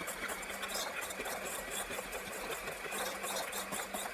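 Electric hand mixer running steadily, its beaters whipping cooked crab meat in a stainless steel bowl: a steady motor hum with a light clatter of the beaters against the metal bowl.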